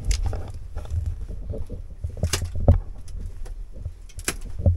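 Footsteps and scuffing on the rock floor of a cave, with low thumps of movement and two sharp scrapes, about two and four seconds in.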